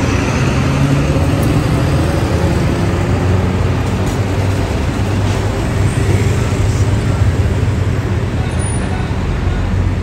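Steady street traffic noise, with diesel bus engines running as buses pull away and pass close by.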